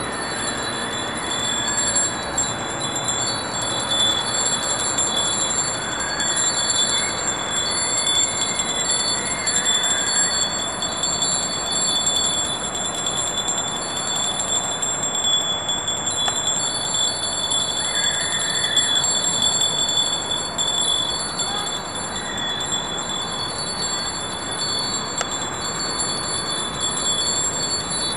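A bell rung continuously, several high ringing tones held steady, with small swells in level.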